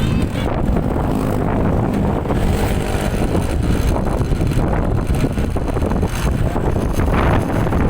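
A bus engine running close by, steady and low-pitched, with wind buffeting the microphone; no horn is sounding.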